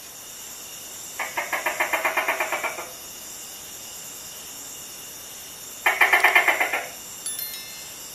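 Tokay gecko giving two bursts of rapid rattling clicks, about ten a second: the first lasts about a second and a half, the second about a second. This is the chuckling rattle that leads into its "to-kay" call. Steady high insect trilling runs behind it.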